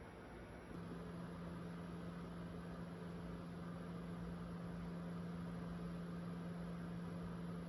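A steady low machine hum over a soft hiss, switching on just under a second in and holding level.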